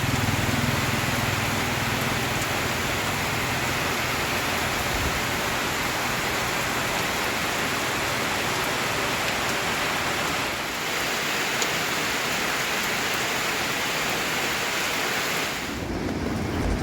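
A steady, even hiss of noise that dips briefly about two-thirds of the way in and thins out just before the end.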